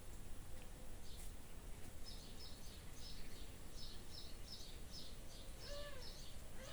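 A small bird chirping in quick short notes, about three a second, from about two seconds in, over a steady low outdoor rumble. Near the end a single short kitten mew rises and falls.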